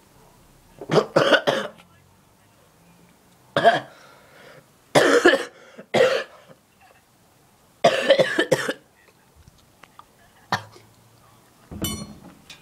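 Person coughing hard in repeated fits, several coughs in quick clusters of two or three, set off by a mouthful of dry ground cinnamon (the cinnamon challenge).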